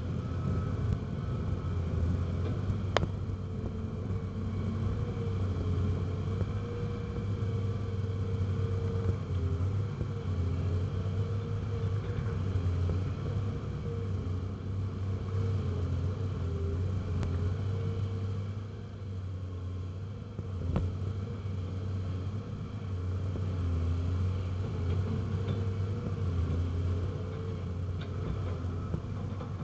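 Cat 330CL excavator's diesel engine running steadily under work, with a whine that wavers up and down and a few sharp clanks.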